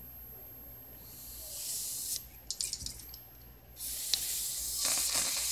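Aerosol can of isopropanol spraying through its red extension straw onto an eMMC chip to clean it: a short hiss about a second in, a few light clicks, then a longer hiss from about four seconds.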